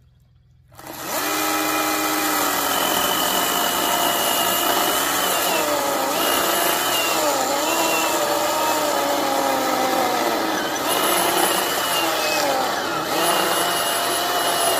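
Ryobi ONE+ 18V HP brushless 10-inch cordless chainsaw starting about a second in and cutting through a dry log. Its motor whine dips in pitch again and again as the chain takes load, then recovers.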